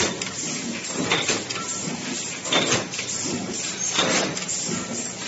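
Automatic hinge-making machine running with a steady mechanical noise and a metallic clank about every one and a half seconds as its tooling cycles.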